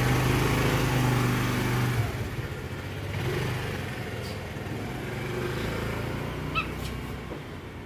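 A motor vehicle engine running close by, loudest for the first two seconds and then dropping back to a lower hum. A short high chirp sounds near the end.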